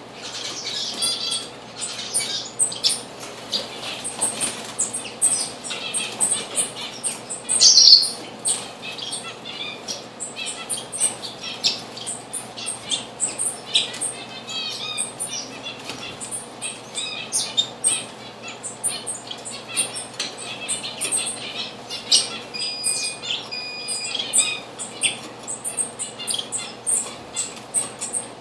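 Small birds, diamond firetails among them, chirping and calling: many short high notes overlapping without a break, with one louder sweeping call about eight seconds in.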